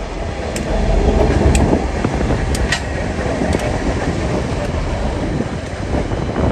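TasRail diesel locomotives 2054 and 2051 passing close by at a level crossing on a loaded coal train, with a loud low engine rumble and wheel noise on the rails, then the coal wagons begin rolling past. Light ticks come about once a second.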